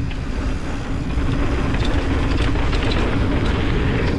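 Mountain bike riding fast down a dirt trail: constant wind rumble on the camera microphone with tyre and drivetrain noise, and a run of clatters and rattles over rough ground from about two to three and a half seconds in.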